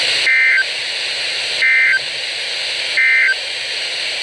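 NOAA Weather Radio sending three short bursts of warbling digital data tones, evenly spaced about a second and a third apart, over radio static hiss: the SAME end-of-message code that closes the severe thunderstorm warning.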